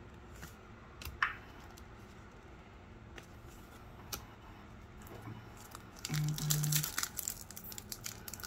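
A hockey card pack's foil wrapper being torn open by hand: a dense run of crinkling and tearing starting about six seconds in. Before it there are only a few faint clicks from cards being handled.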